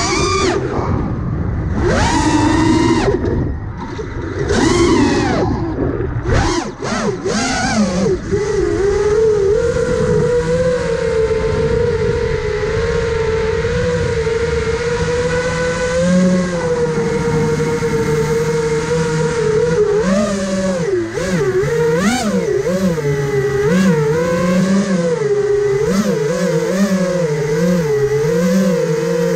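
Motors and propellers of a 5-inch FPV quadcopter (iFlight Nazgul5) whining, the pitch rising and falling with the throttle. The first several seconds are a string of quick throttle punches with short drops. After that it settles into a steady whine, and in the second half the pitch wavers quickly as the craft holds position and corrects.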